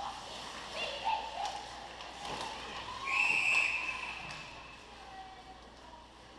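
Ice hockey referee's whistle, one shrill blast of under a second about three seconds in, signalling a stop in play. Before it come short shouts from players and a few sharp knocks of sticks and puck on the ice.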